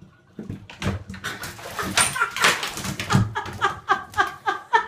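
A black cat tumbling into a bathtub: a noisy burst of scrambling and splashing, then a fast run of short high cries, about four a second, each falling in pitch.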